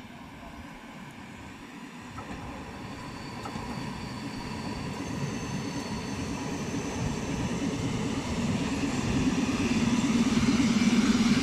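ER9T electric multiple unit approaching along the track. Its running rumble grows steadily louder as it nears, with a faint high whine coming in partway through.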